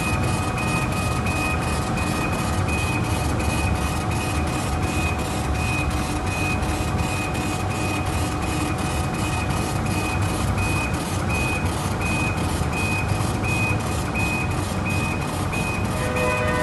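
Laser engraving machine running: a steady low hum with fast, even ticks about three to four a second and a high beep repeating about every 0.7 s.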